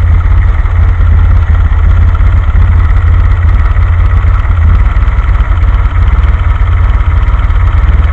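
DeLorean's carburetted PRV V6 idling roughly, the idle outlet screws open too far and letting too much idle mixture into the venturi bores, as the screws are being turned back in. It is a loud, steady rumble, and the low tone shifts a little about halfway through.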